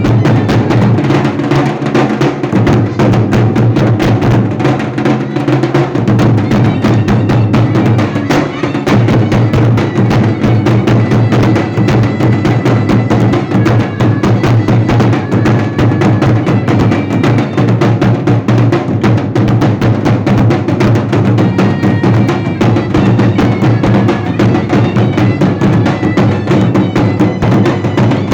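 Dhol and nagada drums played together, a fast, dense, unbroken stream of strokes over a deep, booming drum tone.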